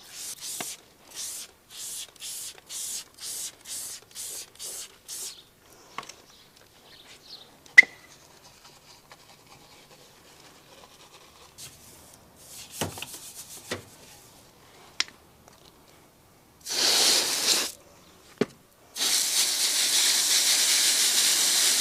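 A hand trigger spray bottle squirted about ten times in quick succession, roughly two sprays a second, onto a car wheel. Then faint scrubbing with a few sharp clicks. Near the end a garden-hose spray nozzle hisses, first in a burst of about a second and then steadily, as it rinses a wheel brush.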